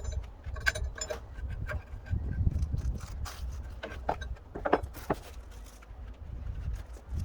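Irregular metallic clicks, knocks and scrapes over a low rumble.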